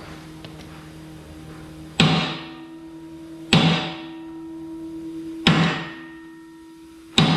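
Four heavy hammer blows on a short steel bar, each followed by a ringing of the steel that dies away. The bar is being used to drive a seized part of a jaw crusher back into place.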